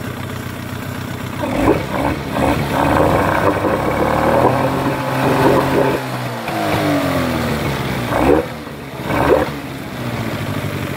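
A warmed-up 15 hp outboard motor revved up from idle about a second and a half in and held at higher speed. The revs then fall away, are blipped twice, and settle back to idle near the end.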